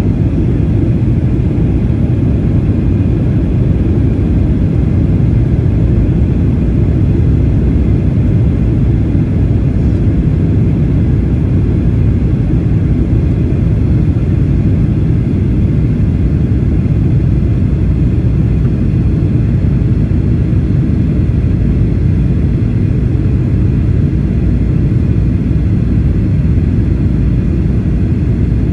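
Steady low rumble of cabin noise in a Boeing 737-800 descending toward landing: airflow and its CFM56-7B engines, unchanging throughout.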